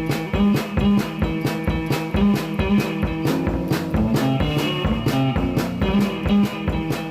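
Guitar music with a steady beat.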